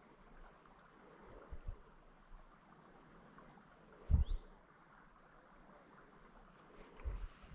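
Faint outdoor background with a few short, dull low thumps, the loudest a double thump about four seconds in: handling bumps from hands working at a small fishing hook close to the microphone.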